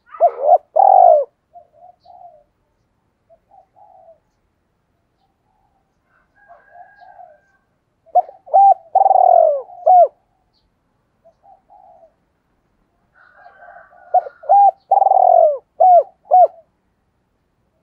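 Spotted dove cooing in three phrases about six seconds apart. Each phrase is a few short notes around one longer, falling coo, and the later two end on two short notes. Softer notes come between the phrases.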